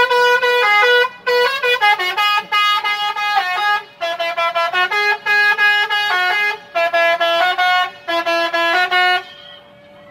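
Telolet horn on an ALS bus playing a fast melody of short, loud honked notes that jump between pitches, in several phrases with brief breaks between them. The horn stops near the end.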